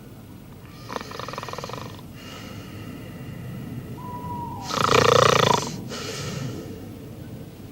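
A man snoring loudly and roughly: a weaker snore about a second in and a much louder one about five seconds in, with a faint whistling tone on the breath between them.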